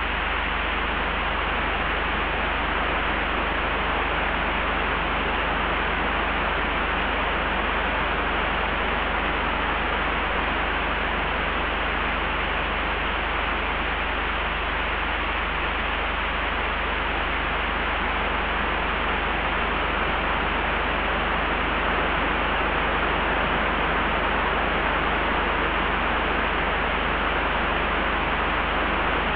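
Layered wind ambience: a steady rushing wind noise over a constant deep rumble, swelling only slightly.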